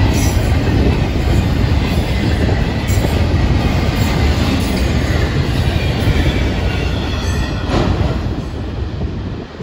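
Double-stack intermodal freight train rolling past: a steady rumble of steel wheels on the rails, with occasional sharp clicks, dying down near the end as the train moves away.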